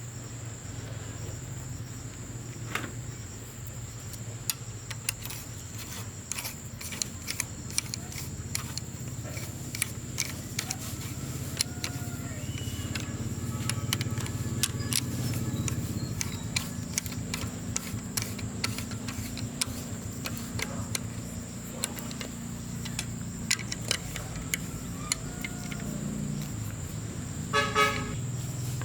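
A steady low hum with many small clicks and taps scattered through it, under a constant high whine. Near the end comes a short horn toot.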